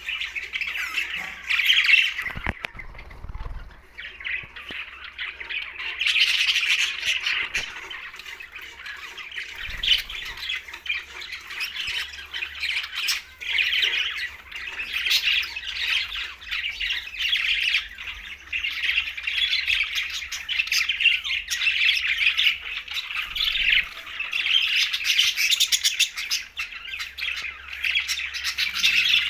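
Budgerigars chirping and chattering continuously, many short calls overlapping. The chatter thins out about two seconds in and picks up again a few seconds later.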